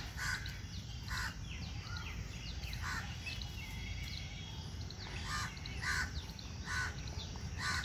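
Crows cawing, a string of short caws spaced about a second apart, over faint chirps of smaller birds and a steady low background hum.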